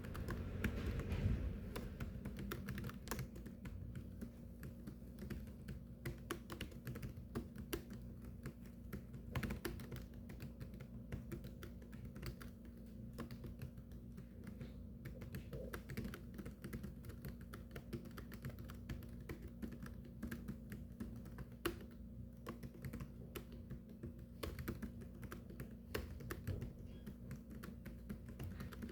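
Continuous rapid typing on a keyboard: dense, irregular key clicks with no pauses, over a steady low hum.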